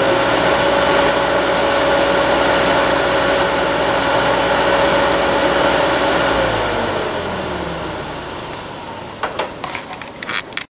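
Tractor engine running at a steady speed, then its speed drops and it falls away over the last few seconds, with a few sharp knocks near the end.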